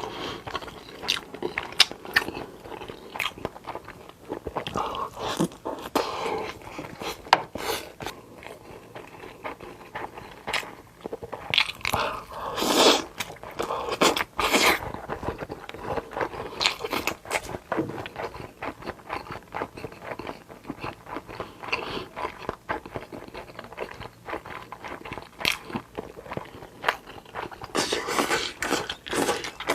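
Close-miked eating: a person chewing and crunching mouthfuls, with many short, irregular clicks and smacks.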